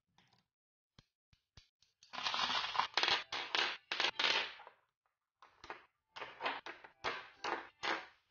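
Small cylindrical rod magnets and metal balls clicking and clacking sharply as they snap together. A few lone clicks, then a dense spell of metal clatter lasting about three seconds, then a quick run of separate clicks.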